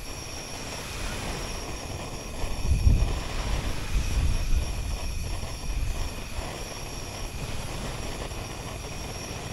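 Wind buffeting the microphone in uneven low rumbling gusts, strongest about three seconds in, over faint steady high-pitched tones.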